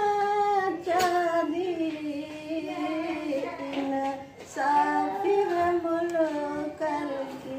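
A woman singing a Punjabi tappa in a high voice with long, drawn-out held notes, breaking off briefly about halfway through.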